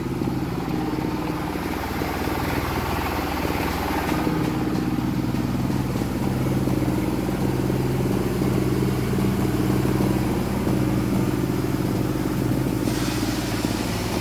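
M-30R2 multipurpose grinding machine running steadily on its engine, grinding animal manure, with a fast even engine beat under a hissing, rattling grind.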